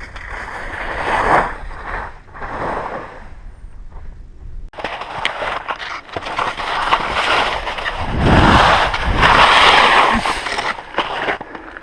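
Skis scraping and sliding over a small patch of leftover snow, in a few noisy swells. The loudest stretch comes in the second half.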